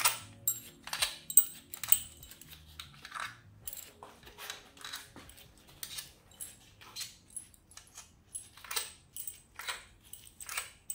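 Loose steel crankcase bolts clinking against each other as they are pulled out of the lower crankcase of a Kawasaki GPZ700R engine and gathered in a gloved hand. It is an irregular string of sharp, ringing metallic clinks, about two a second.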